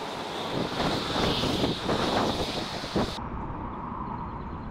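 Wind buffeting the microphone with a steady hiss and a few soft knocks; about three seconds in the hiss cuts off suddenly, leaving a duller rumble.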